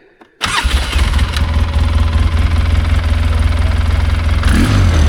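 ATV engine catching right away about half a second in, then idling steadily.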